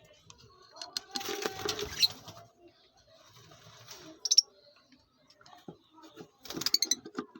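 Small caged parrots chattering: a scratchy burst of chatter, a single short high chirp, then a quick run of clicky high chirps near the end.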